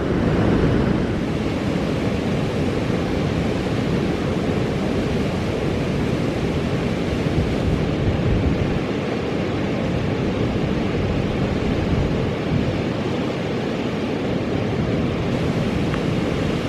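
Water pouring steadily over a river weir, a continuous even rush of white water.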